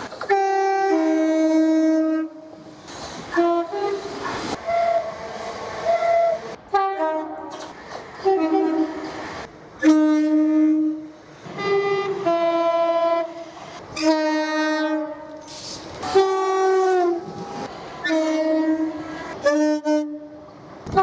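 British train two-tone horns sounded over and over in short blasts, mostly a high note dropping to a lower one, about a dozen soundings with brief pauses between them.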